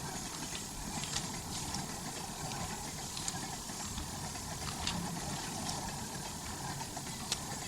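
Steady low rumble of a train carriage in motion heard from inside, with a few faint clicks.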